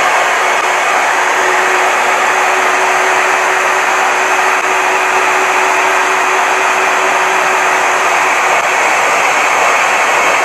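Milwaukee portable band saw on a stand, running and cutting a small metal bracket piece: a steady, even whir with a steady tone in it that fades out about eight seconds in.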